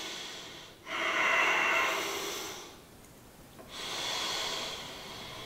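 A man's slow, deep breathing: two long breaths of about two seconds each, the first starting about a second in, the second about halfway through.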